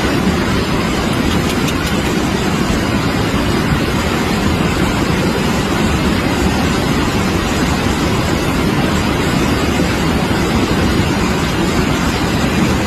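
Floodwater rushing in a steady, loud, deep noise with no breaks: a flash flood in spate after a cloudburst.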